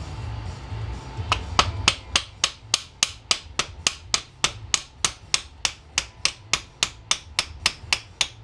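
Metal hammer tapping in quick, even strokes, about three to four a second, starting about a second in. The strikes are driving a small brass bushing out of the drill's housing.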